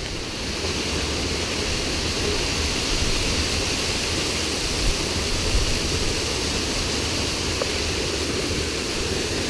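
Tritosari waterfall pouring close by: a loud, steady rush of falling water.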